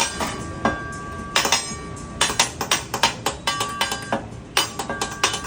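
Metal spatula and knife clanking and ringing against each other and the steel griddle, a hibachi chef's drumming routine: a few spaced strikes, then a fast irregular run of clanks from about two seconds in.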